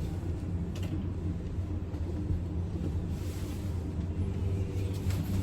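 Otis passenger lift car travelling upward, heard from inside the car: a steady low hum and rumble from the lift's drive and ride, with a few faint ticks.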